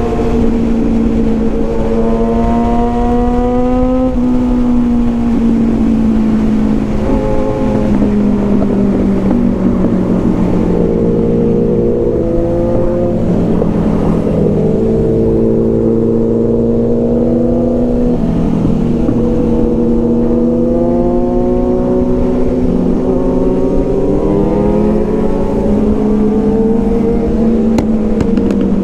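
Several superbikes with full-system aftermarket exhausts riding together. The engines run under load, their pitch rising and falling with a few sudden drops.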